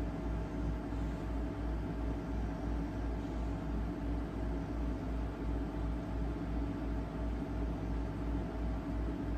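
Steady mechanical hum with a low throb pulsing about three times a second under a faint hiss.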